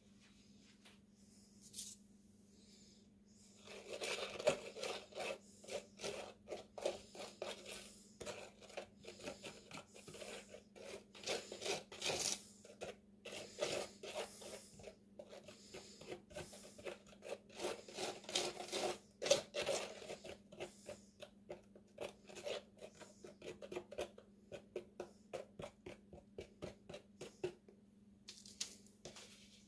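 A wooden stick stirring a small batch of Cement All concrete mix in a plastic cup: rapid scraping and clicking strokes that start about four seconds in and stop shortly before the end. A faint steady hum runs underneath.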